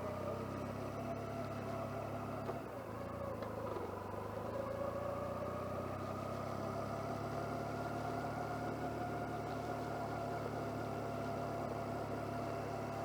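Motorcycle engine running at a steady road speed, heard through a lavalier microphone in a jacket pocket, which keeps the wind noise muffled. The engine note dips briefly about three seconds in, then climbs slowly and holds.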